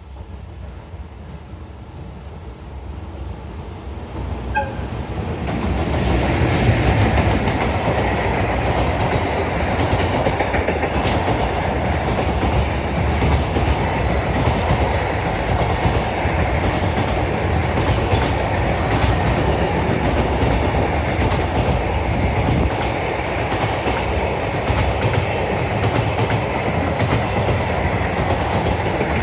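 Freight train approaching and running past: the noise builds over the first six seconds, then holds as a steady rumble of passing wagons with wheels clattering over the rail joints.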